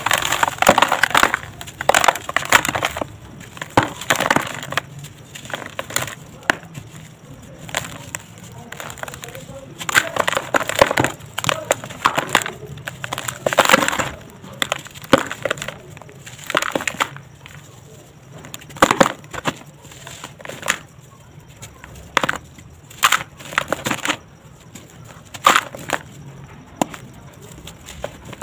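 Dry sand-cement chunks crunching and crumbling in bare hands over a plastic tub. The crunches come in irregular bursts a second or two apart, with quieter gaps between them.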